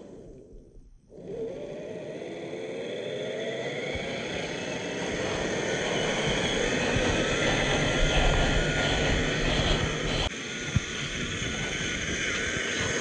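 Small RC crawler's brushed 540 electric motor and gear drivetrain whining under load. It is quiet for about the first second, then the whine rises in pitch as the truck speeds up and holds steady. About ten seconds in the sound changes abruptly, and a short click follows.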